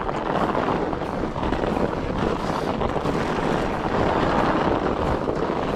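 Fat-tyre mountain bike rolling along a snowy trail: a steady rush of tyres on snow, with wind on the microphone.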